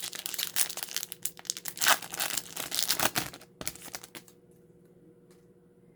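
A Yu-Gi-Oh booster pack's foil wrapper being crinkled and torn open, with rapid crackling rustles for about three and a half seconds that then stop.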